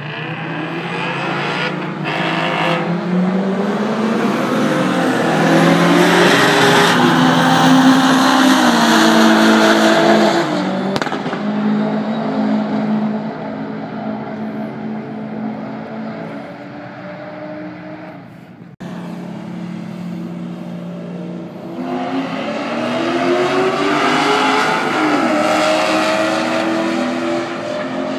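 Sports cars at full throttle in a roll race, their engines climbing in pitch and dropping back with each gear change as they accelerate past. Two runs are heard, the second beginning after an abrupt break about two-thirds through.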